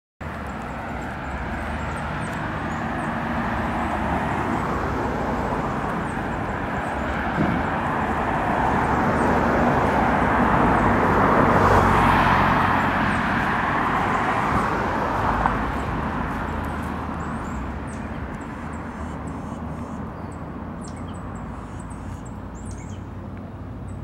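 Road traffic: a vehicle's tyre and engine noise swells as it approaches, passes close about halfway through, then fades away. Birds chirp faintly over it, more clearly near the end.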